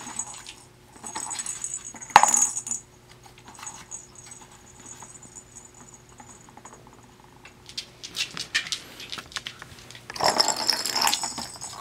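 Small plastic ball rattling and clicking as it rolls round the circular track of a cardboard cat-scratcher toy, batted along. There is one sharp knock about two seconds in, and a louder, busier rattle near the end as a hand sends the ball round.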